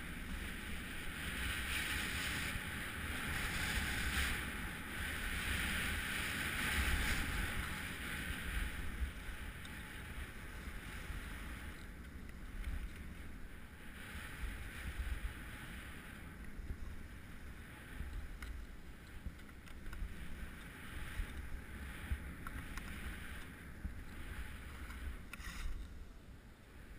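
Skis hissing and scraping over packed, tracked-up piste snow during a downhill run, with wind buffeting the microphone. Louder for the first eight or nine seconds, then quieter.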